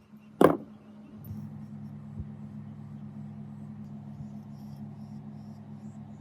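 A single sharp knock about half a second in, then a steady low machine hum that starts about a second in and runs on evenly.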